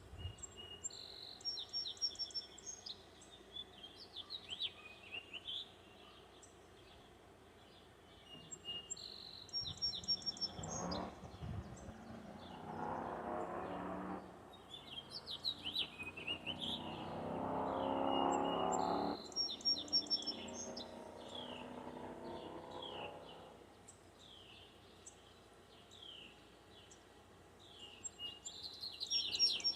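Songbirds singing in repeated short chirpy phrases. Partway through, a lower rushing sound swells up for about ten seconds and then fades away.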